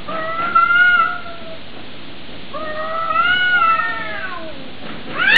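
Cat caterwauling, the drawn-out yowl of a cat squaring up to fight: two long, wavering yowls, with a harsh noisy outburst breaking out right at the end.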